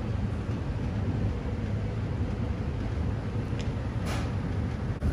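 Steady low rumbling background noise, with a short faint hiss about four seconds in.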